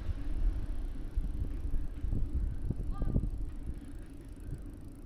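Riding an e-bike with an action camera: wind buffeting the camera's microphone over a low rumble of tyres and frame, with a few light clicks and a brief high chirp about three seconds in.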